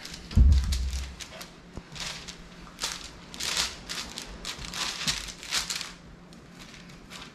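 Parchment paper crinkling and rustling in a series of short bursts under hands pressing and patting sticky pie pastry flat on a counter, with a low thump about half a second in.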